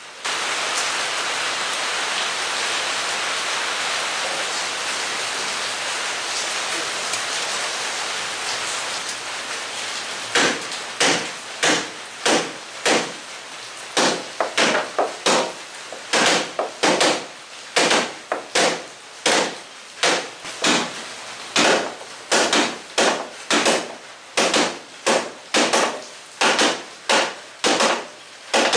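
Timber beams being struck to drive a Japanese kama tsugi (gooseneck) joint together: sharp wooden knocks, about two a second in short runs, starting about ten seconds in. Before that, a steady hiss starts suddenly and fades away over about ten seconds.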